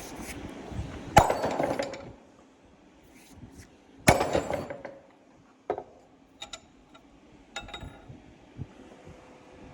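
Two heavy hammer blows on steel, about three seconds apart, driving a new bearing race into a Gleaner R72 final drive housing, each ringing on for about a second; then several lighter metal clinks.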